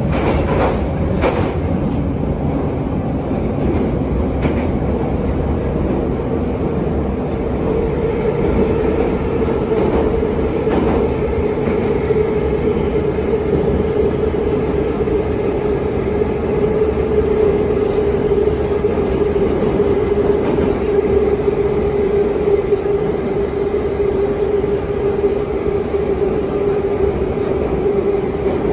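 An 81-717/714 metro train running through a tunnel, heard from inside the car: a steady loud rumble of wheels on rails, with a few knocks in the first second or two. About eight seconds in, a steady whine rises out of the rumble and sinks slightly lower near the end.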